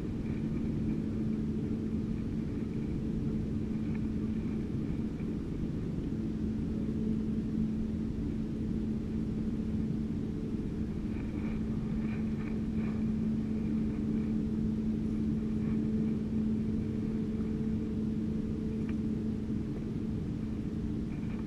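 A motorized banca's engine running steadily, a low drone with one strong held tone. The engine has recently been repaired.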